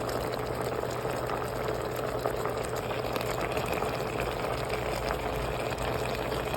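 Pork cooking in a pan, bubbling and sizzling steadily with many small crackles over a faint steady hum.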